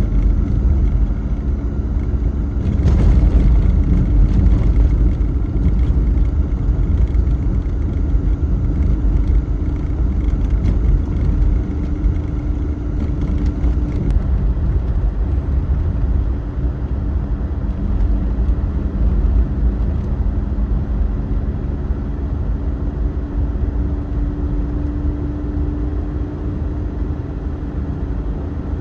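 Kei van driving, its engine and road noise making a steady low rumble heard from inside the cabin, with the engine note shifting slightly as it goes.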